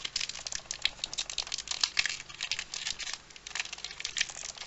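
Foil wrapper of a Pokémon booster pack crackling and crinkling as it is torn open by hand, with a short pause about three seconds in.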